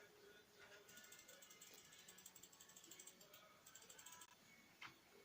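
Faint, irregular mechanical clicking and gear noise from a Lexmark MB2236 laser printer's mechanism: the grinding that the fuser's gears and collars make when they lack grease.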